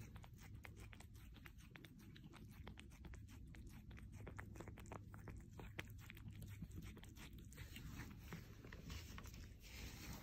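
Mother cat chewing and eating the placenta after giving birth: faint, rapid, irregular wet clicks and smacks of chewing.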